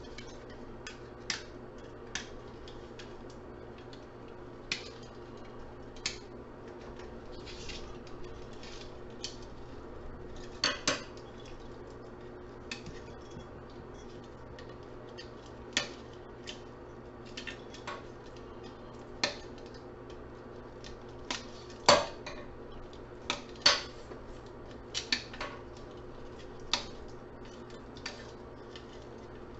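Hand wire cutters snipping through a bundle of wires on a computer circuit board, with metal tools and parts clinking on the workbench. Irregular sharp snips and clicks come every second or few, the loudest about three-quarters of the way through, over a steady low hum.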